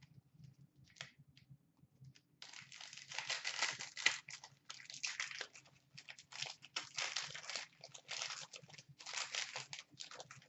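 Wrapper of a Panini Prime hockey card pack crinkling and tearing as it is unwrapped by hand: irregular crackly rustling that starts about two seconds in and carries on in bursts.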